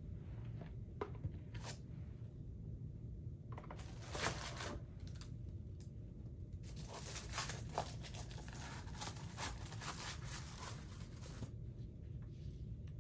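Paper packing rustling and crinkling as shoes are unwrapped and lifted from a shoebox: a short spell about four seconds in and a longer one from about seven to eleven seconds, with a few light clicks of handling.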